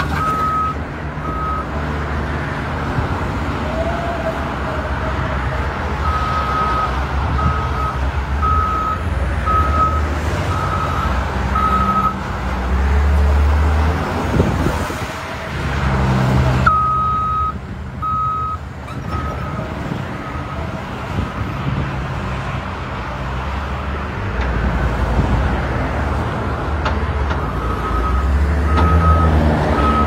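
Caterpillar 950K wheel loader's diesel engine running and swelling louder under throttle as it works, with its reversing alarm beeping about once a second in spells while it backs up.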